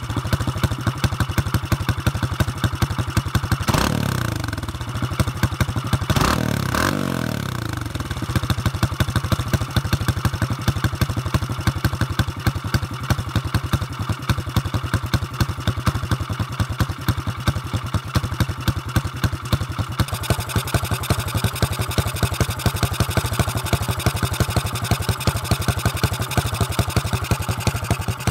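Honda Super Cub with a bored-up 122cc single-cylinder four-stroke engine and trumpet-tip muffler, running on its stand. The engine is revved up and drops back a few times near the start, around four and seven seconds in, then settles to a steady idle with even exhaust pulses.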